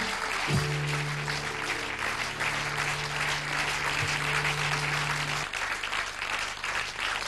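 Studio audience applauding over the start of a song's instrumental accompaniment: a low chord is struck about half a second in and held until about five seconds in.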